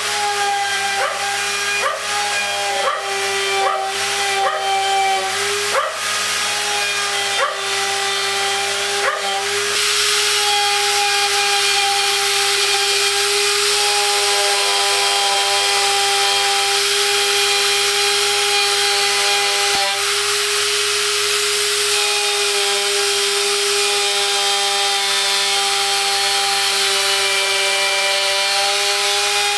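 The milling cutter motor of a homemade pantograph milling machine runs with a steady high whine while it cuts wood. For the first ten seconds it gives repeated sharp knocks, and the motor's pitch dips briefly with each one as the cutter bites. After that it cuts continuously with a louder, steady rush of noise under the whine.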